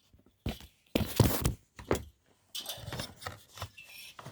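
Handling noises on a workbench: a few knocks and clatters, the loudest about a second in, then a couple of seconds of scraping as the stripped diesel heater part is propped up and wedged in place.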